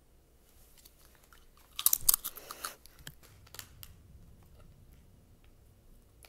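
A child biting into and crunching a crisp chip: a run of sharp crunches, loudest about two seconds in, thinning to a few scattered crunches.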